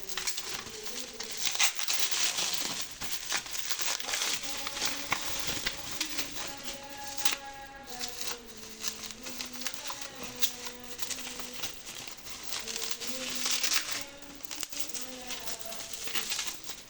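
Packaging being handled and opened: crinkling and rustling with many small clicks and crackles. Faint music with held notes plays underneath.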